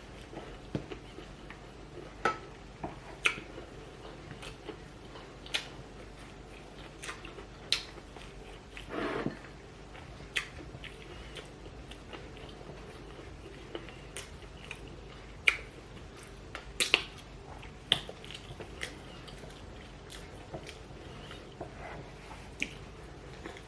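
A person eating close to the microphone: quiet chewing with scattered sharp clicks and smacks, and one short, louder rustling smear about nine seconds in.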